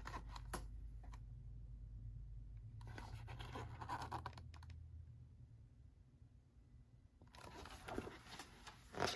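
Faint rustling and scratching of paper as a picture book's pages are handled and turned, with a few light clicks, over a low steady hum that fades out about five seconds in.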